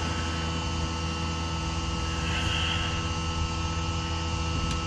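Steady machine hum, with a short hiss about two and a half seconds in.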